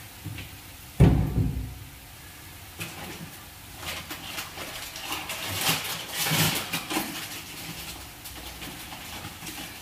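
Kitchen handling noises: one low thump about a second in, then a few seconds of scattered rustling and light clattering.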